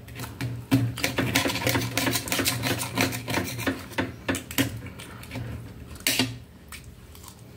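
Table knife sawing through a crispy breaded chicken cutlet on a metal plate: a rapid run of crunching clicks and metal scraping that eases off after about four seconds. A single sharp clink of cutlery on the plate near the end.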